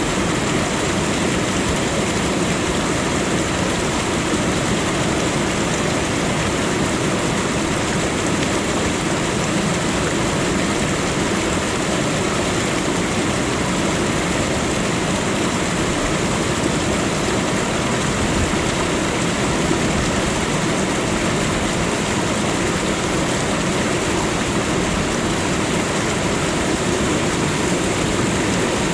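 Waterfall: water falling and splashing in an even, unbroken rush.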